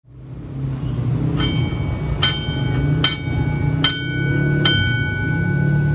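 Dome-shaped railway level-crossing warning bell struck five times, about one strike every 0.8 seconds, each strike ringing on. A steady low rumble runs beneath it, and the sound fades in at the start.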